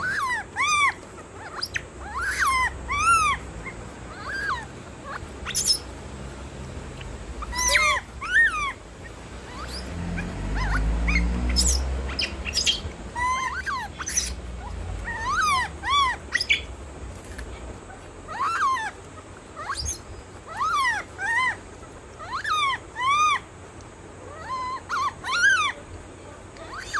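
Short, high chirping animal calls, each rising and falling in pitch, repeated every second or so, often in pairs. About ten seconds in, a low rumble swells and rises in pitch for a couple of seconds.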